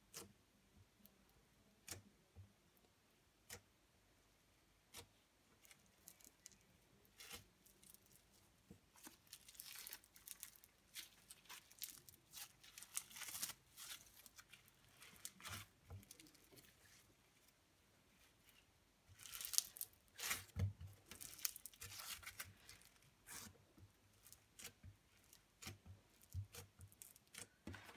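Foam-bead slime pressed, pulled apart and kneaded by fingers: faint scattered crackles and crunches of the beads, coming in thicker clusters in the middle and later part.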